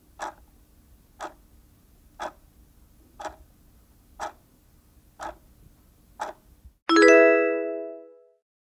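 Countdown-timer sound effect: a clock ticking once a second, seven ticks, then a loud bell-like chime that rings and fades over about a second and a half. The chime marks the end of the answer countdown.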